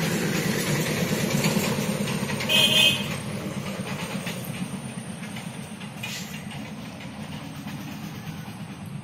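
Low rumble of a passing motor vehicle that slowly fades away, with a short horn blast about two and a half seconds in.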